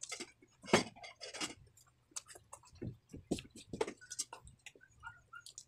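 Close-up eating sounds of a person chewing chicken: an irregular run of wet mouth smacks and clicks, with one sharper, louder click just under a second in.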